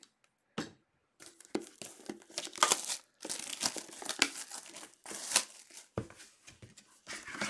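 Clear plastic shrink wrap being torn and crumpled off a trading-card box, an irregular run of crinkling and tearing with a few sharper snaps.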